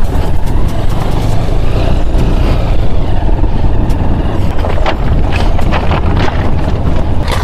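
Motorcycle running at low speed over a rough stony riverbed track, with wind on the microphone and frequent knocks and rattles as the bike jolts over the rocks.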